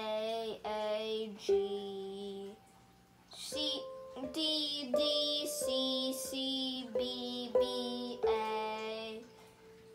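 A child singing a simple melody note by note while striking notes on a small steel drum, the pan's notes ringing under the voice. There is a short pause a few seconds in.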